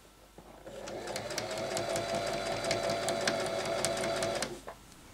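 Singer electric sewing machine stitching a seam. It starts about half a second in and speeds up over the first second. It then runs steadily, with a hum and rapid needle clicking, and stops near the end.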